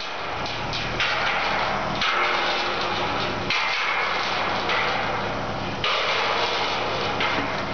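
Heavy steel wheeled sculpture being towed over gravel, its metal parts rattling and clanking as it rolls, with the towing Suzuki Sidekick's engine humming steadily underneath.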